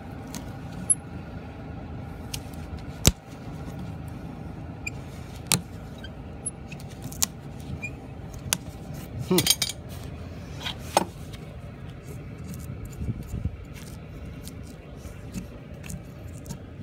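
A farrier's hand tool cuts and scrapes away hoof wall undermined by bacterial invasion, giving sharp clicks every second or two, more of them about nine to eleven seconds in. A steady low hum runs underneath.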